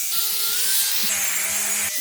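Power tool running against a workpiece with a hissy, rasping noise and a wavering motor whine. The sound changes about halfway, when a low steady hum joins, then cuts off abruptly just before the end.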